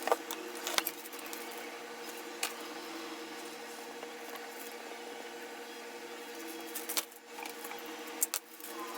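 Steady indoor hum with a few sharp clicks and knocks, two near the start and a couple more near the end.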